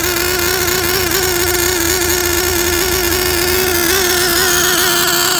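OS Max R21 3.5 cc nitro RC car engine running steadily with a high, even note, on its rich factory carburettor setting during break-in.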